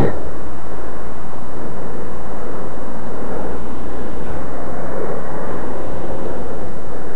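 Loud, steady rush of wind and road noise picked up by a camera travelling along a street in traffic.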